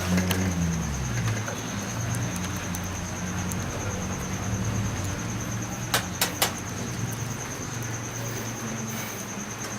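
Handling of a desktop computer case while the hard-disk screws are undone, with three sharp clicks close together about six seconds in, over a steady low hum and a faint high whine.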